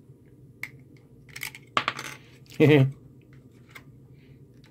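Clear acrylic enclosure panels and brass standoffs clicking and clinking as they are handled and pressed together: several light clicks, the loudest a brief one about two and a half seconds in.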